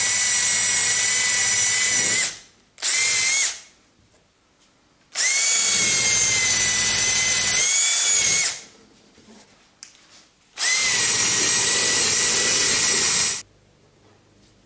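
Cordless drill spinning a rubber eraser disc against the car's paint to strip leftover spoiler adhesive. It runs in four bouts: one at the start, a short blip about three seconds in, then two longer runs of about three seconds each, with a steady high whine that dips briefly in pitch as each run starts.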